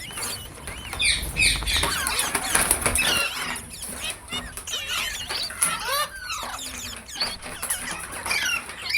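Indian ringneck parakeet chattering: a rapid run of short chirps and squeals that swoop up and down in pitch, densest in the first few seconds.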